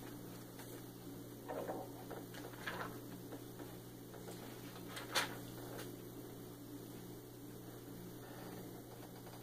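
Hymnal pages being turned in a quiet room: a few soft paper rustles and a sharp click about five seconds in, over a steady low electrical hum.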